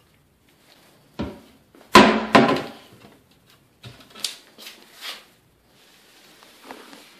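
Cupboard door and its contents being knocked. A thud comes about a second in, two loud clunks follow about two seconds in, then lighter taps and clicks.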